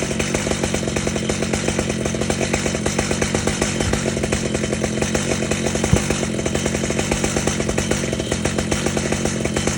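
Stihl MS 881 two-stroke chainsaw running steadily at full throttle in a Panther chainsaw mill, ripping along an elm log. A short sharp knock about six seconds in.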